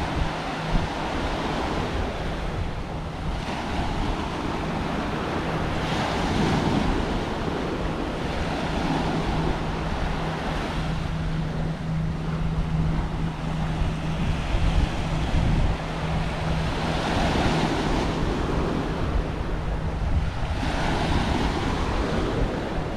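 Small ocean waves breaking and washing up a sandy shore, the surf swelling every few seconds, with wind rumbling on the microphone. A steady low hum runs underneath.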